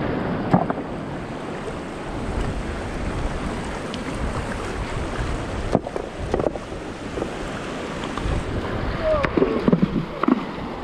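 Shallow river rushing over a stony bed, with a few sharp splashes and knocks as stones are thrown into the water to build a dam. Distant voices call out near the end.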